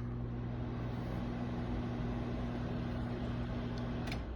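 Whirlpool microwave oven running a short cook cycle: a steady low hum over fan noise that stops shortly before the end with no beep, because its beeps have been muted.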